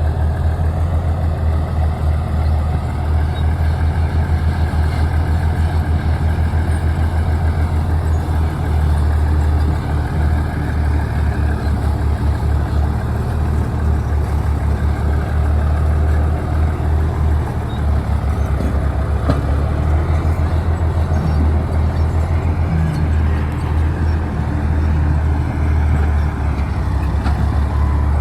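Crawler bulldozer's diesel engine running steadily, a deep low rumble.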